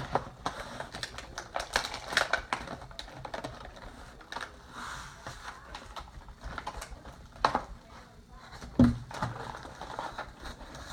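Cardboard toy box being opened and handled by hand: irregular clicks, crackles and scrapes of cardboard, with a louder knock about nine seconds in.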